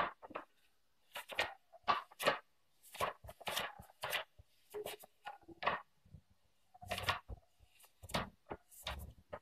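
Pages of a paper notebook being flipped by hand: a run of quick papery rustles and flicks at irregular intervals.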